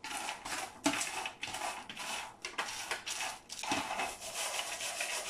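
Almonds being stirred and turned over on a foil-lined baking tray partway through roasting: a run of rattling, scraping strokes as the nuts shift against the foil and the tray.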